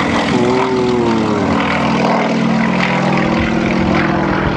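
Single-engine aerobatic propeller plane flying display manoeuvres overhead, its engine and propeller running loud and steady, the pitch wavering about a second in as the plane turns.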